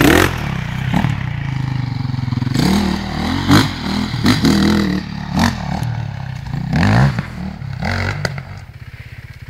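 Dirt bike engine revving up and down over and over as the motorcycle pulls away, then fading near the end.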